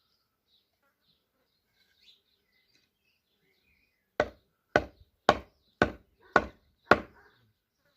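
Six axe strokes chopping into wood, about two a second, starting about halfway through, with faint birdsong before them.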